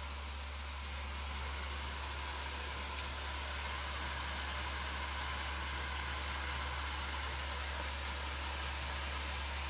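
Steady hiss of steaks sizzling between the closed hot plates of a Tefal OptiGrill GC702D16 electric contact grill, with a steady low hum underneath.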